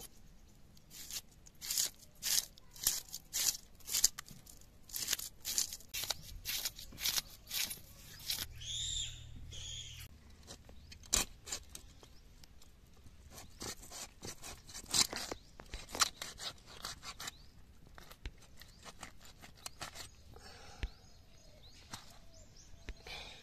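Fish being scaled and cut against a boti, the upright curved blade of an Indian floor cutter: a quick series of short scrapes, about two or three a second, that thins out to scattered scrapes and cuts after about ten seconds.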